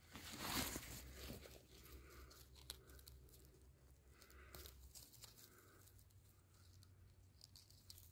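Hand rustling through moss, dry grass and needle litter on the forest floor: one brief, louder tearing rustle about half a second in, then faint rustles and small snaps as a mushroom is worked loose by hand.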